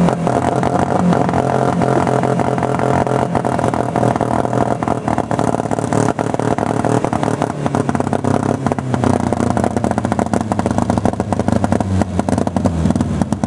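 The engine of a smashed-up Peugeot 309 hatchback running steadily, with dense clattering and rattling throughout; the engine note settles lower about halfway through as the car comes to a stop.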